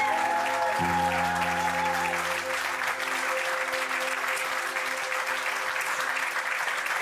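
Wedding guests applauding a newly married couple, steady clapping throughout, over background music whose held chords fade out a few seconds in.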